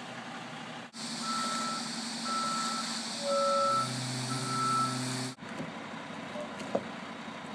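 Concrete mixer truck's reversing alarm beeping four times, about once a second, over its running engine, which gets louder near the last beeps. The sound then cuts off suddenly, leaving quieter outdoor background.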